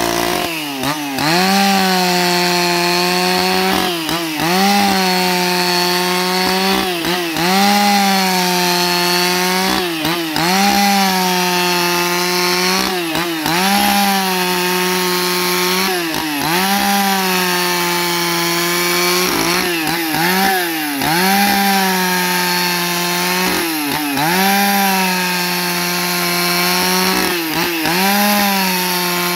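Husqvarna 281 XP two-stroke chainsaw running at high revs under load while ripping a log lengthwise into planks. The engine note dips and recovers about every three seconds as the saw is worked along the cut.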